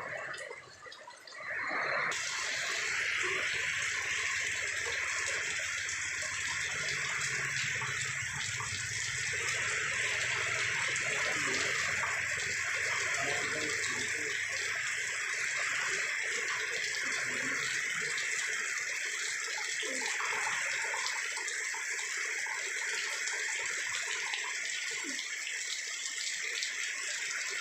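Heavy rain pouring down in a steady, dense hiss that sets in suddenly about two seconds in, with a low rumble beneath it that dies away after about eighteen seconds.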